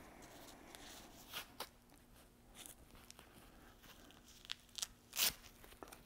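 Gloves being pulled on and adjusted: faint rustling with a few short sharp rasps, the loudest about five seconds in.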